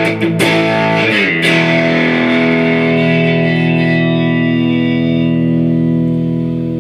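Electric guitar played through a homemade breadboard clone of an MXR Distortion Plus pedal, switched to its alternate clipping diodes with the tone turned up. A few quick distorted strums come first, then one chord is held and left to ring.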